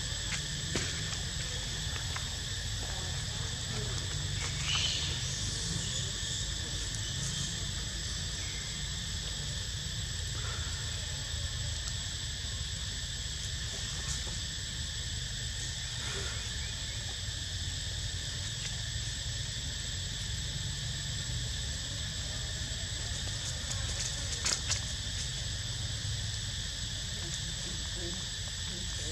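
Insects trilling in a steady chorus, several high pitches held without a break, over a low rumble. A few faint ticks or rustles come about five seconds in and again near the end.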